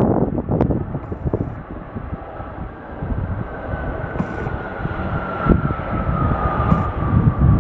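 Jet airliner's engines, a steady rumble with a whine that falls slowly in pitch through the second half. Wind buffets the microphone throughout.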